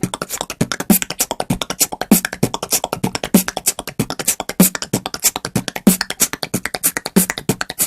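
Beatbox click roll made with the tongue against the palate: a fast, even train of sharp clicks, about eight to ten a second, with a stronger low accent roughly every 0.6 s.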